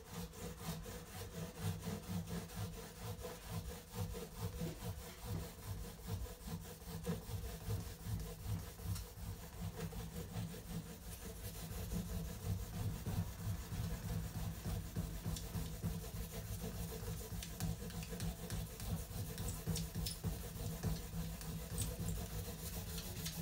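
3D-printed carbon-fibre PLA hand saw cutting a thin strip of wood, with steady back-and-forth strokes, about two to three a second.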